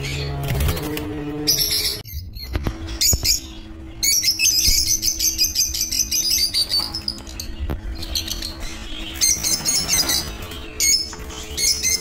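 Caged lovebirds chattering: rapid, high-pitched chirps and squawks from many birds at once, thickest a few seconds in.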